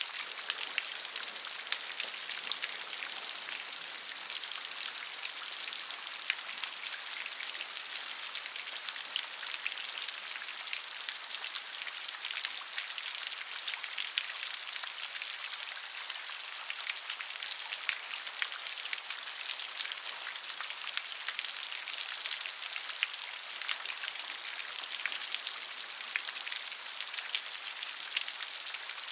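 Steady rain with many individual drops pattering, an even hiss dotted with close-set sharp drop hits.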